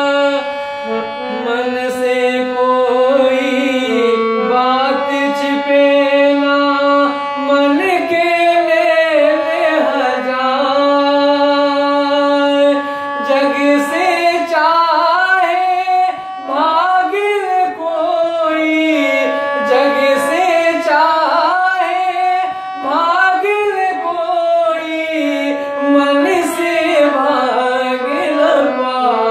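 A man singing a Hindi devotional bhajan in long, ornamented phrases that slide and waver in pitch, accompanying himself on a harmonium that holds steady notes underneath.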